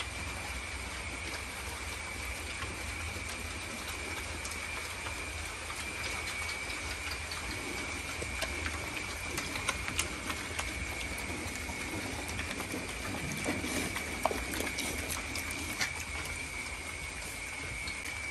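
Pigs eating pellet feed off a concrete floor: chewing and crunching with scattered small clicks, thickest in the middle, over a steady high-pitched whine and a low hum.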